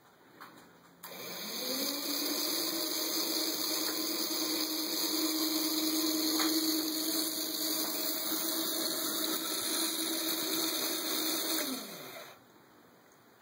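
Small electric motor driving a model conveyor belt: it whirs up to speed about a second in, runs with a steady hum and a high hiss for about ten seconds, then winds down and stops shortly before the end.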